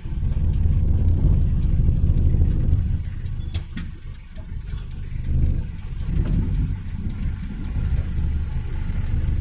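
Motor vehicle rumble on a rough, broken road: a heavy low drone that swells and eases, with a sharp click about three and a half seconds in.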